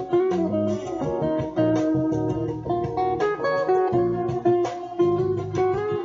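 Background music led by plucked guitar over a steady bass line.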